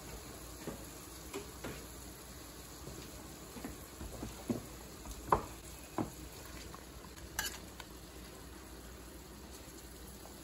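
A fork clinking and scraping against a stainless steel pan as sausages are lifted out of the peppers and oil: a scattering of short sharp clinks, the loudest about halfway through, over a faint steady hiss.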